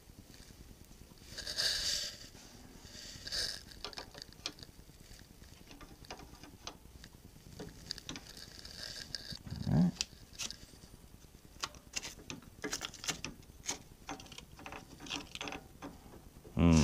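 Small metal clicks and ticks of an open-end wrench and cast-iron change gears being handled on an Atlas lathe's gear train as the stud nut is tightened, with a brief rustle of paper about a second and a half in and a dull knock just before ten seconds.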